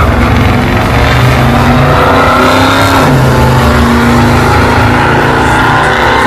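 Drag-racing car launching off the line and accelerating hard down the strip at full throttle: a loud, continuous engine sound whose pitch shifts briefly about three seconds in.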